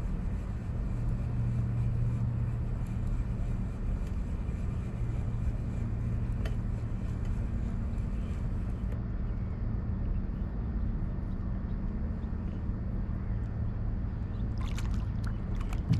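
Steady low hum of a boat's motor over faint water and wind noise. Near the end come a few brief splashes as a hooked fish breaks the surface beside the kayak.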